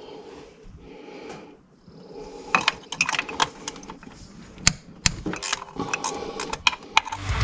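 Sharp metallic clicks and clinks of a wrench working the 12 mm bolts off the fuel filter housing of an LB7 Duramax. The clicks are irregular and begin about two and a half seconds in, a few every second.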